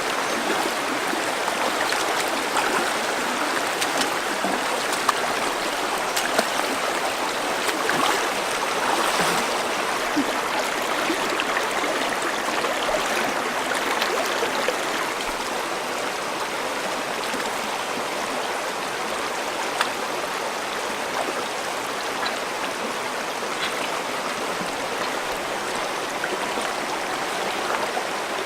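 Stream water running steadily over a shallow bed, with a few faint ticks.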